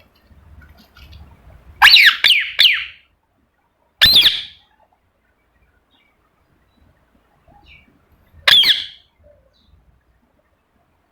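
Ringneck parrot calling in loud, sharp screeches: a quick run of three about two seconds in, then single calls at about four seconds and again later, with quiet gaps between.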